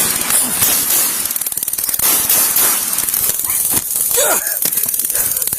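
Body-camera microphone jostled and rubbed during a physical struggle: dense crackling and scraping noise with rapid clicks. A short strained cry comes about four seconds in.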